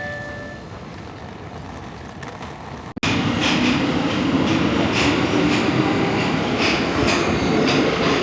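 Quieter stretch, then, after an abrupt cut about three seconds in, a train running loudly on the rails with a steady rumble and repeated clacks of the wheels over rail joints.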